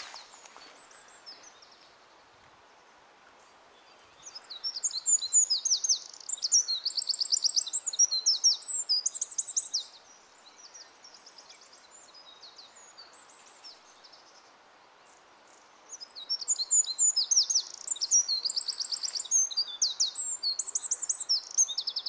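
Eurasian wren singing at full volume: two long bouts of rapid, very high trills and warbles, each about six seconds. The first starts about four seconds in, the second a little past halfway.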